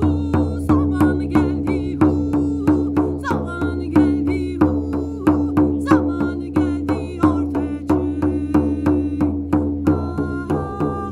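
Shaman drum beaten in a steady, quick rhythm over a sustained low drone, with wavering higher tones above.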